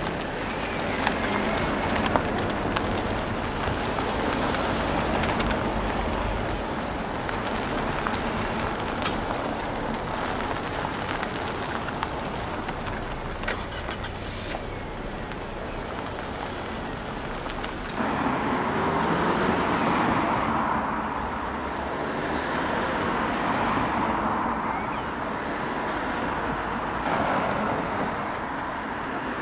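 A steady rush of car and outdoor noise with scattered clicks, changing abruptly about two-thirds of the way through to MG6 cars driving past one after another, each swelling and fading as it goes by.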